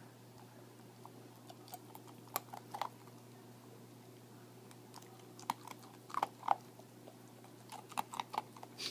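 Yellow Labrador retriever puppy chewing and crunching on something held between his paws: sharp wet clicks and crunches in three short bouts, a few seconds apart.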